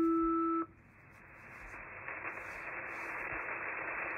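Shortwave receiver audio in upper sideband mode: a steady beep tone cuts off in the first second, followed by static hiss from the radio band that slowly grows louder.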